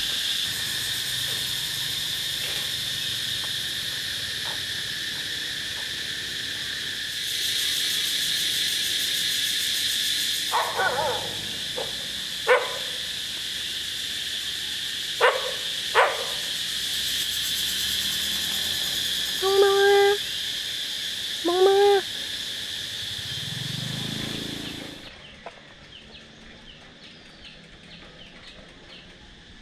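Stray dog barking: four short sharp barks between about ten and sixteen seconds in, then two longer, louder barks about twenty and twenty-two seconds in, over a steady high drone that stops about twenty-five seconds in.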